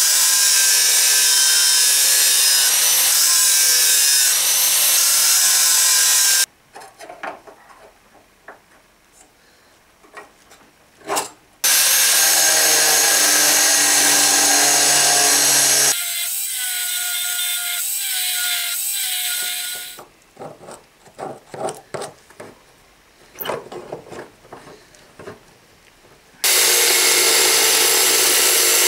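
Angle grinder with an abrasive disc cutting truck leaf-spring steel, in several loud spells of metal grinding with quiet gaps of small knocks between them. About the middle there is a spell of quieter, steadier running with a held whine.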